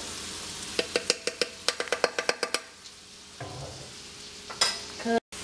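A spoon clinking and tapping rapidly against a small saucepan as butter sauce is stirred, a quick run of sharp metallic clicks about a second in. Under it, a steady sizzle of shrimp and sausage frying in a cast iron skillet.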